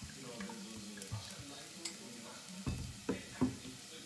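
White wine pouring from a glass bottle into a plastic measuring cup with a gurgle, then a few knocks about three seconds in as the bottle and cup are handled. Under it, a faint sizzle from rice and onion toasting in a steel pot.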